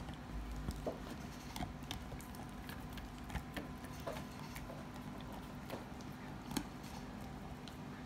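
Basset hound gnawing a twisted rawhide chew, the rawhide squeaking and clicking under her teeth at irregular intervals, with one sharper click about six and a half seconds in.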